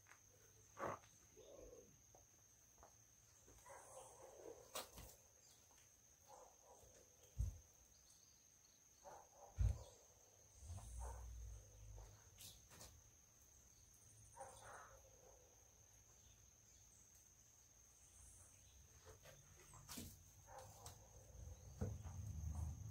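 Quiet outdoor ambience: a steady high-pitched insect drone, with a few faint knocks and rustles. The loudest is a thump about ten seconds in, and a low rumble builds near the end.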